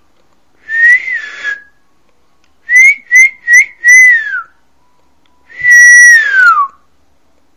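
A person whistling close to the microphone, with breath audible under each note. First one short whistle, then four quick chirp-like whistles, the last sliding down, then a long whistle that glides down in pitch.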